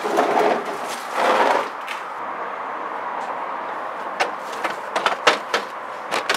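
Plastic bin scraped twice across a concrete driveway as it is pushed into place under the front of the SUV, followed by a handful of light clicks and knocks.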